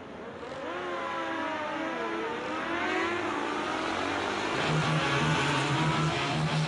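A motor vehicle engine revving, its pitch gliding down and back up as it grows louder. About four and a half seconds in, a steady pulsing bass beat joins it.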